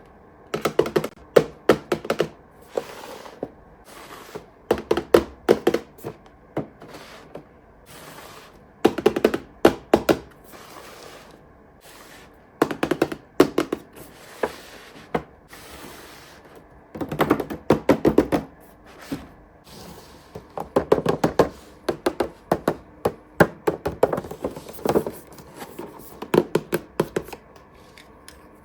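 Hands handling a toy playset's packaging during an unboxing: clusters of quick, light taps and knocks that come in bursts every few seconds.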